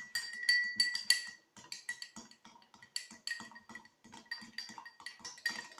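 Spoon stirring glue and nail polish in a drinking glass, clinking against the glass several times a second with a short ringing tone after each knock.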